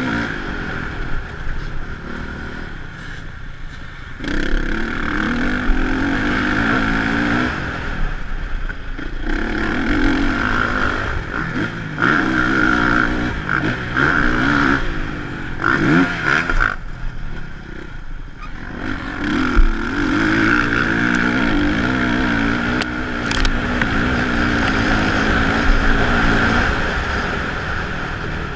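Honda motocross bike engine being ridden hard on a dirt track, its pitch rising and falling with the throttle, with several short cuts where the rider backs off before winding it up again.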